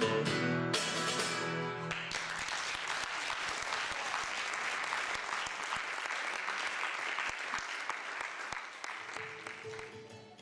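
Nylon-string classical guitar plucking the closing notes of a piece. Audience applause takes over about two seconds in and dies away near the end.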